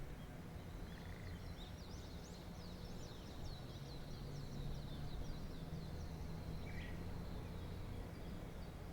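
Faint birdsong: a quick run of short, high, down-sliding chirps from about a second and a half to six seconds in, over a low steady hum.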